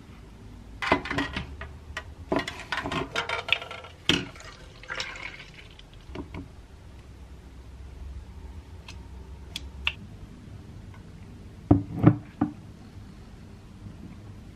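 Milk poured from a carton into a plastic shaker bottle, in an irregular run of splashes and glugs, followed by a scoop of powder tipped in and a few light clicks. About twelve seconds in, two short thuds as things are set down on a table.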